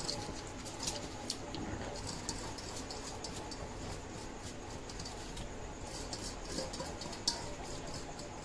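Spoon stirring washed barnyard millet into a pan of water: light scattered scrapes and ticks over a faint steady hiss, with one sharper tick about seven seconds in.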